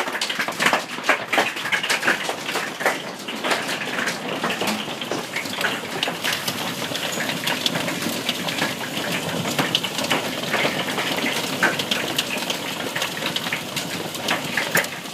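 Heavy hail pounding down: a steady roar of falling ice and rain with many sharp, irregular cracks and clatters of large hailstones striking hard surfaces.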